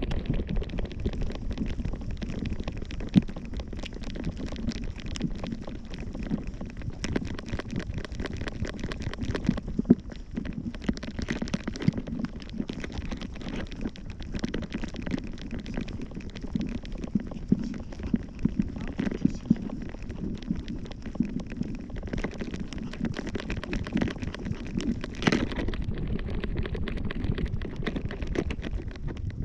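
Dense crackling and rustling from a camera strapped to a walking Yorkshire terrier's harness: the dog's fur and harness rubbing on the microphone over a low rumble.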